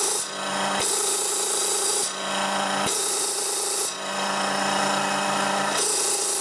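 A Sanden automotive A/C compressor spun by an electric motor on a variable frequency drive, running with a steady hum and a rasping hiss that comes and goes every second or two.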